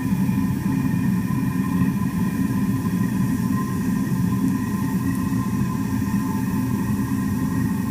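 Steady roar of the fire heating the anvil ahead of its quench: a constant low rumble with a few thin, steady whining tones above it.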